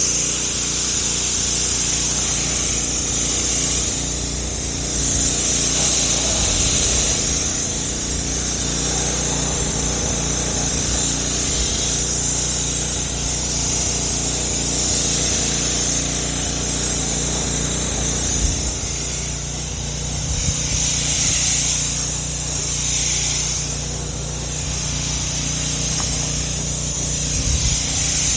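Pressure washer running steadily, with the hissing high-pressure spray of a 16-inch wheeled undercarriage cleaner. The hiss swells and fades every few seconds as the cleaner moves under the car.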